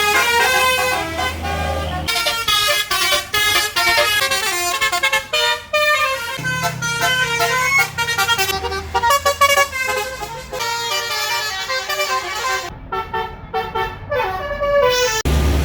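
Bus telolet (basuri) multi-tone horn playing a fast melody of short notes that step up and down in pitch, with a low engine rumble underneath at times. The melody breaks off suddenly near the end.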